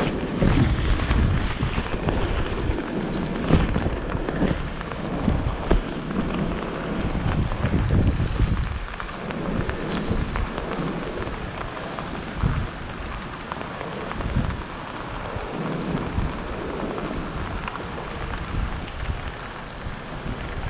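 Wind buffeting the microphone in irregular gusts, a low rumble over a steady rushing hiss.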